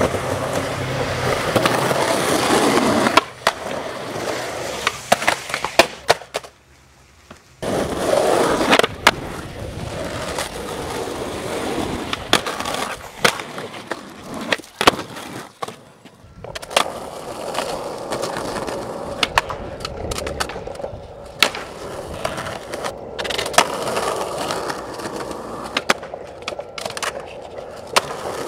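Skateboard wheels rolling on concrete, broken by repeated sharp cracks of tails popping and boards landing. A brief lull about six seconds in.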